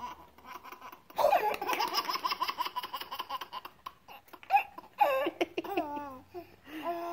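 Baby boy laughing hard in a long run of quick, pulsing giggles, followed by a single sharp knock and then shorter rising-and-falling vocal sounds.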